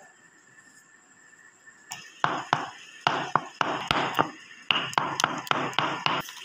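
A pestle pounding and mashing mango flesh in a mortar to make pulp: a quick run of wet strokes, about three a second, starting about two seconds in.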